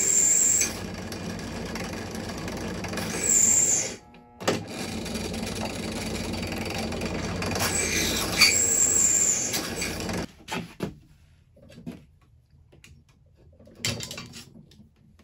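Benchtop drill press running, its bit cutting through metal angle strip clamped to the table, with high squeals each time the bit bites into the metal. The press stops about ten seconds in, and a few light knocks of handling follow.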